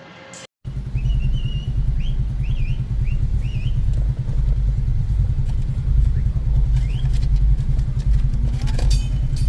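Motor vehicle engine running with a steady low rumble that begins suddenly about half a second in. A few short high chirps sound over it in the first few seconds.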